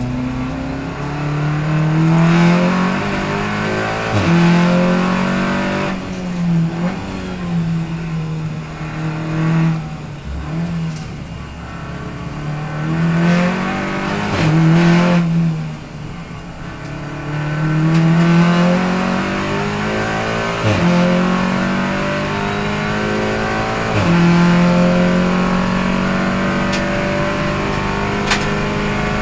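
A race car's engine heard from inside the cockpit at racing pace. It revs up and drops back through slow corners, then accelerates hard with a run of upshifts, each one a climbing engine note that breaks and falls back.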